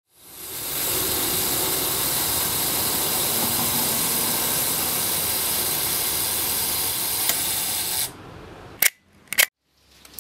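A steady hiss fades in and holds for about eight seconds, then cuts off suddenly. Near the end come two sharp clicks of a camera shutter, about half a second apart.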